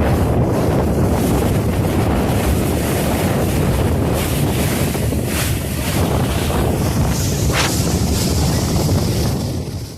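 Boat under way at sea, its engine running steadily beneath heavy wind noise on the microphone and the wash of water. The sound cuts off suddenly at the end.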